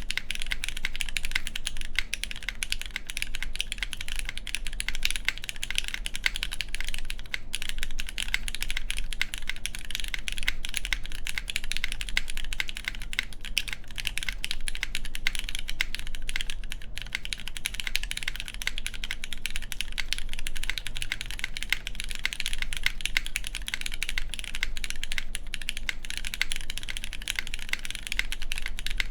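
Continuous fast typing on an Antipode Studio Pneuma Mk.2/60 mechanical keyboard with an aluminum plate, lubed and filmed Cherry MX Black Clear Top linear switches on 78 g springs, and GMK keycaps, with the spacebar mounted without its gasket. The key strokes run as a dense, steady stream of clicks.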